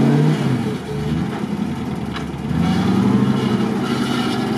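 GAZ-66 truck engine running under load as the truck crawls through deep mud. The engine note drops about a second in and picks up again a little past halfway.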